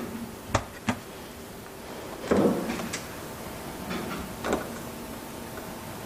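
Clicks and clunks of a dishwasher's door and fittings being handled: two sharp clicks at the start, a heavier clunk a couple of seconds later and a lighter one near the end, over a faint steady hum.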